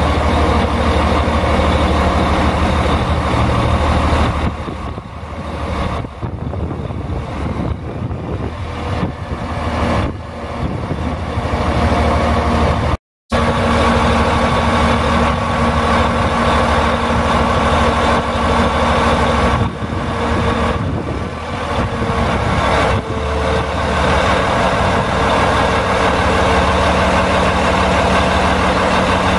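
Sterling L9500 crane truck's Caterpillar C12 inline-six diesel engine running steadily, with a brief dropout in the sound about 13 seconds in.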